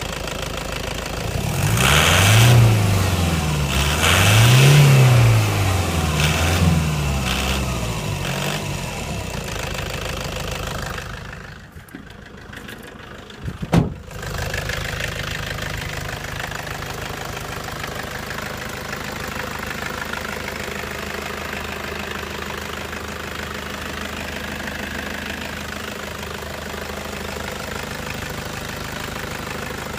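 Toyota Hilux 2KD-FTV 2.5 litre turbo diesel engine revved twice, rising and falling in pitch, with a smaller blip after, then settling to a steady idle with a diesel knock that is tagged as injector rattle. About halfway through, the engine sound drops away for a few seconds and ends in one sharp knock, after which the steady idle continues.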